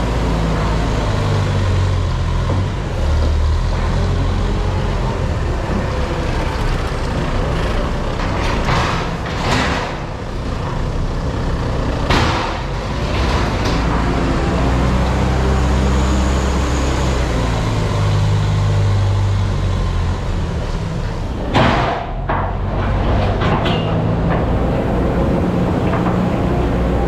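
Heavy diesel farm machinery running, its engine note shifting up and down several times, with a few brief hissing or clattering bursts over it.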